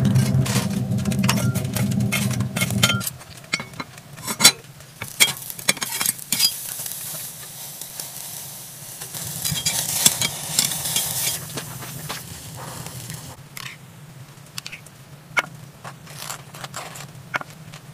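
A metal tool clinks and scrapes as hot coals are scooped into a cast-iron pot over a low steady hum, which cuts off about three seconds in. A burger patty then sizzles on a grill grate over the coals. Near the end, a knife scrapes as sauce is spread on a toasted bun.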